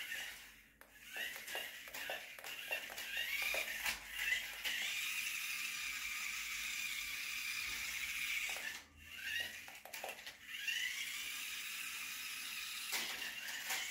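Electric drive motor of a toy RC off-road car whining. Its pitch rises as the car speeds up and then holds steady, several times over, with a brief stop near 9 s. Clicks and rattles come from the wheels and plastic body running over rough ground.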